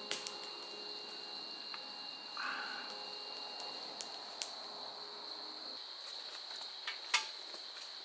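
Crickets trilling steadily, with scattered small clicks and a sharper knock about seven seconds in.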